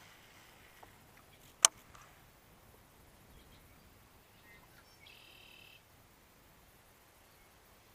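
Quiet outdoor background with one sharp click about a second and a half in, and a short buzzy bird call of under a second a little past the middle.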